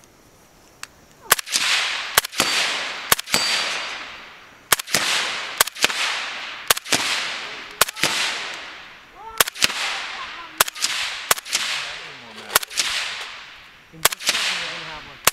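Suppressed H&K MP7A1 firing, slowed down: about a second in, sharp cracks start coming about once a second, often as close doubles. Each crack is followed by a hiss that fades away over about a second.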